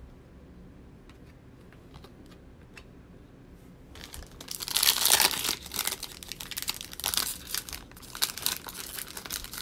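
The foil wrapper of a 2020 Select Football trading-card pack being torn open and crinkled, starting about four seconds in and loudest just after the tear. It goes on in ragged crackles as the cards are pulled out. Before the tear there are only a few soft ticks of cards being handled.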